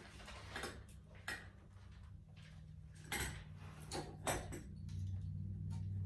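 Scattered light metallic clicks and scrapes as a screwdriver and tiny screws knock against the ceiling fan's metal switch housing and light-kit fittings while screws are worked into place. Background music comes up low near the end.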